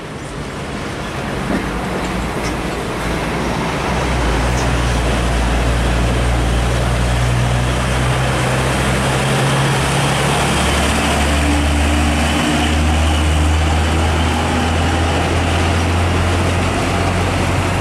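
Diesel engine of a Hino 500 truck towing a trailer, running as the rig drives up and past close by, with tyre and road noise. The engine note grows louder over the first few seconds and then holds steady, with a brief dip about halfway through.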